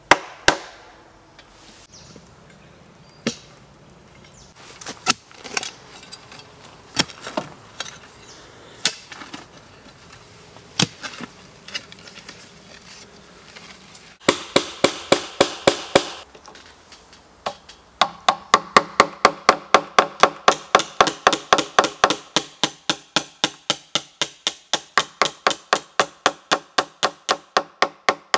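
Metal-headed hammer striking a wooden peg and a wood chisel cut into a timber post joint. Single, scattered blows give way in the second half to a fast, even run of about three to four blows a second that slowly fades.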